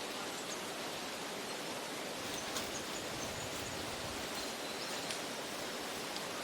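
Steady outdoor background rush with no clear pitch, carrying a few faint short high chirps.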